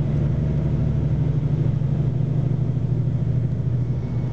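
Tour coach driving along, heard from inside the cabin: a steady low drone of engine and road noise.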